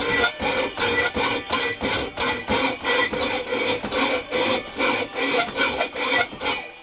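Hand hacksaw cutting through a metal pipe clamped in a bench vise, in quick, even strokes of about three a second, with the pipe ringing under the blade. The sawing stops just before the end.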